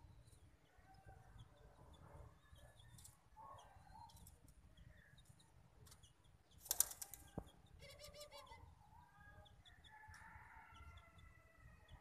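A white puter dove's wings flap in one brief, loud flurry about seven seconds in, followed by a quick run of clicks. Faint chirps and squeaks come and go around it.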